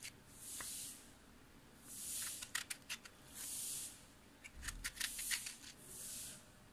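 Small kitchen knife scoring young, raw tinda (round gourds): four short crisp cutting strokes about every one and a half seconds, with light clicks and taps of the knife and gourds in between.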